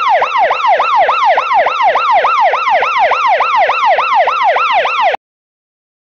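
Electronic siren sound effect: a rapid wailing that sweeps up and down in pitch about four times a second, then cuts off suddenly about five seconds in.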